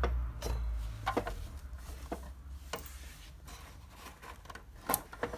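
A few separate light clicks and knocks from handling a Makita MLS100 mitre chop saw as its carrying lock pin is pulled out, with a low rumble in the first second.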